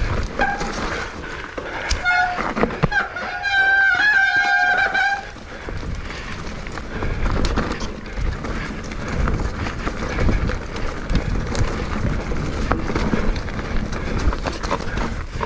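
Bicycle ride heard from a mounted action camera: steady wind and rolling rumble, with a high two-tone squeal lasting about two seconds starting around three seconds in.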